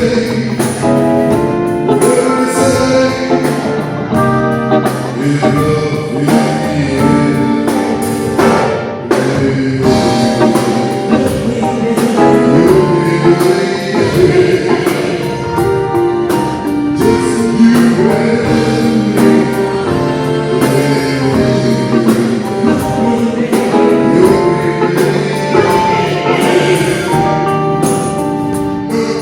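Live band playing a soul-blues song, with drums and singing.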